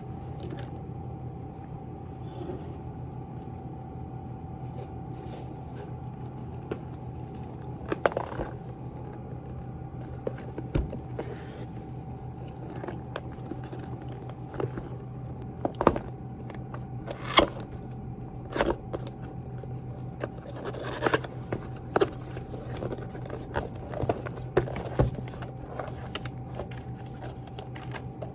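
Objects being handled by hand: irregular clicks, taps and scrapes, scattered and not in a typing rhythm, over a steady low electrical hum.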